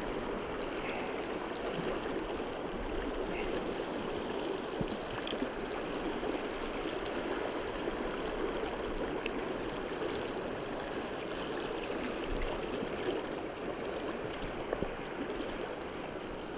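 Madison River current rushing over rocks in shallow riffles: a steady, even wash of moving water, with a few faint ticks.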